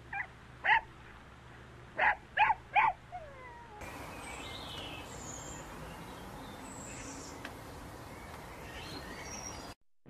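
Pomeranian dog giving short, high yips: two, then three in quick succession about two seconds in. From about four seconds in, a steady outdoor background with scattered faint high chirps follows.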